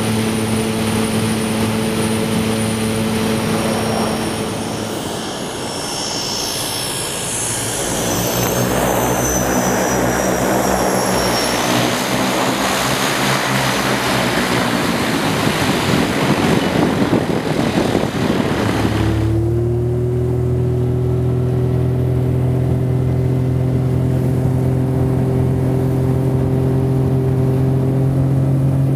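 Small propeller plane's engine running steadily. The engine sound grows noisier in the middle, then changes abruptly about two-thirds of the way through into a new steady drone, one tone rising slightly.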